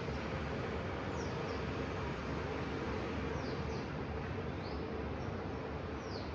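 Steady outdoor background hum heard from a balcony at dawn, with a small bird giving short, high chirps that drop in pitch, several times and some in quick pairs.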